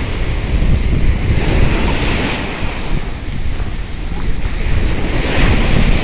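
Small waves breaking and washing up a sandy beach, with surges of wash at about two seconds and again near the end. Wind buffets the microphone throughout, adding a low rumble.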